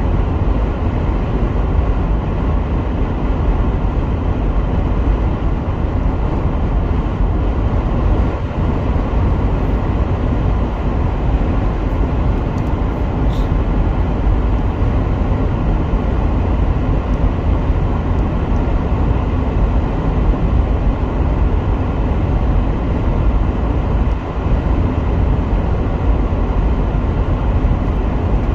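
Steady road and engine noise of a car being driven, a continuous low rumble.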